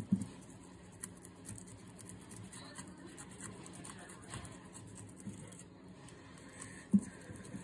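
Fillet knife cutting along a white bass on a plastic cutting board: faint scratching and scraping as the blade works through the flesh, with a short knock at the start and another near the end.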